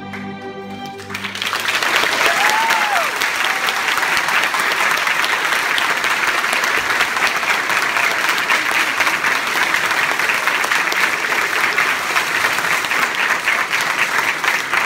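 A school string orchestra with solo viola holds the final chord of a viola concerto, which ends about a second in. Audience applause then breaks out and continues steadily, with one short rising-and-falling call over it near the start.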